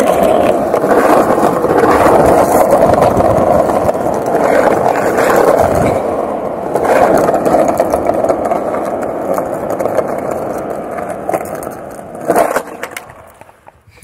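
Wind buffeting the camera microphone: a loud, continuous rumble that swells and eases, then dies away near the end.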